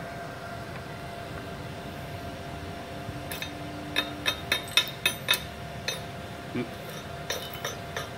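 Metal knocking on a welded steel plate: about a dozen sharp, irregular strikes starting some three seconds in, chipping slag off fresh stick-weld beads, over a steady low hum.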